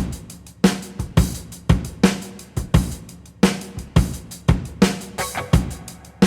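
Background music with a steady drum-kit beat: kick drum, snare and hi-hat, about two strong beats a second.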